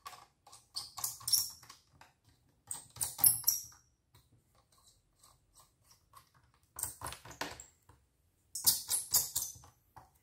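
Small precision screwdriver driving screws back into an HP ProBook 450 G5's plastic chassis: four short runs of quick clicking and scraping, with quiet gaps between.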